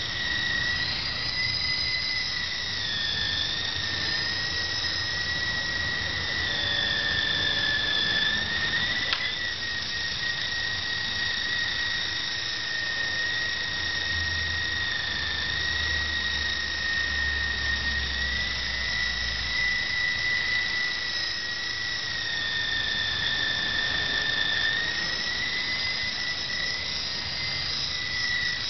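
E-flite Blade CX3 coaxial electric micro RC helicopter flying, its motors and rotors giving a steady high whine that drifts slightly up and down in pitch.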